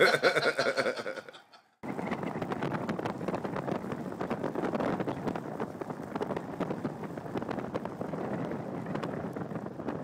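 Laughter cuts off after about a second and a half, then a car drives along a snow-covered road, heard from inside the cabin: a steady rushing of tyres and wind with a rough, crackly texture.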